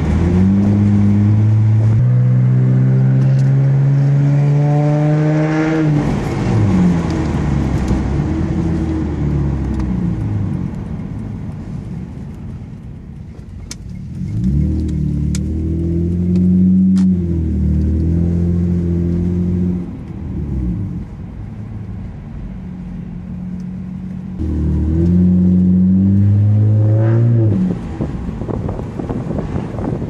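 Honda Accord 3.0-litre V6 breathing through an OBX cat-back exhaust with the resonator and muffler deleted, heard from inside the cabin while driving. The exhaust note rises in pitch through a pull of about six seconds and drops off at the shift, then comes on twice more in shorter pulls that each end with a drop in pitch, with quieter cruising in between.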